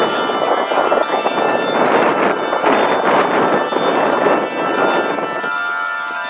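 Rope-pulled church bells ringing, many strokes overlapping in a continuous clangour; about five and a half seconds in the clanging thins and the bells' tones hum on.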